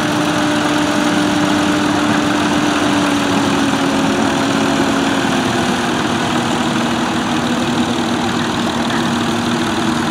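Several tractor engines running at low revs as the tractors drive slowly past. A steady hum drops slightly in pitch about halfway through.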